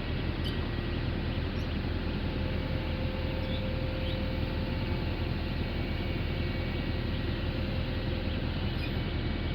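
Heavy machinery engine of a hammerless pile-installation rig running steadily, with a faint steady whine through the middle.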